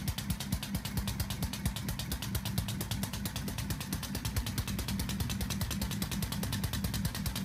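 A homemade six-cylinder compressed-air engine with an eccentric drive shaft, running steadily on four of its cylinders. It makes a rapid, even clatter of air exhaust pulses over a low rumble.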